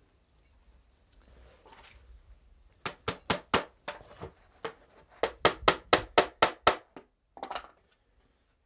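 Small hammer tapping tacks through the second board of a wooden garden trug into the board beneath it: a quick run of about four taps, a short pause, then about eight more taps at about five a second.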